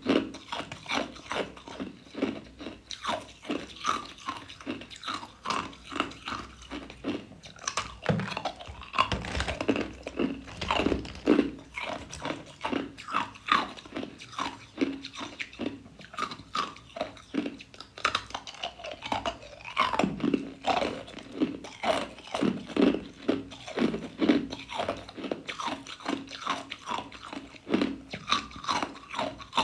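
Clear ice cubes being bitten and chewed: a continuous run of sharp crunches, about two a second.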